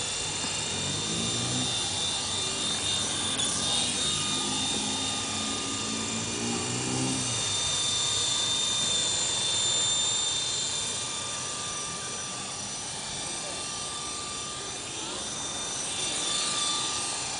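Esky Honey Bee CP2 electric RC helicopter flying close by: a steady high-pitched whine from its electric motor and gears, with the whir of the main rotor. The pitch sweeps as the helicopter moves about, once about three to four seconds in and again near the end.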